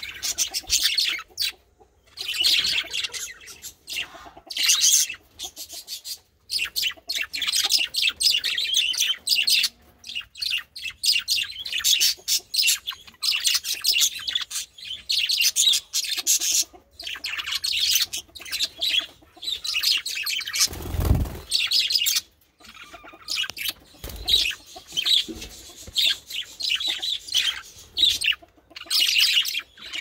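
A flock of male budgerigars chattering: a dense, continuous stream of quick high chirps and warbles with short pauses. About 21 seconds in there is a low thump.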